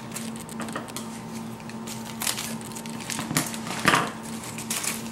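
Paper wrapper crinkling and rustling in short bursts as it is unfolded from around a puff pastry sheet, loudest a little before the end, over a steady low hum.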